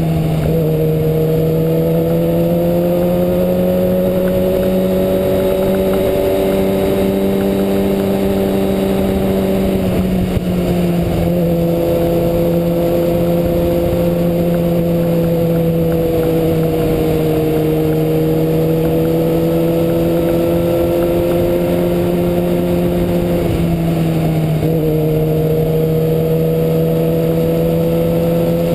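2009 Kawasaki ZX-6R's inline-four engine running at steady, fairly high revs while riding, its pitch dropping abruptly about a third of the way in and dipping briefly near the end, under a steady rush of wind noise.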